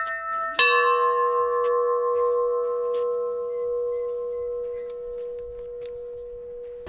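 A large hanging temple bell struck once about half a second in, then ringing on with a long, slowly fading tone; a higher-pitched bell struck a moment earlier is still ringing underneath.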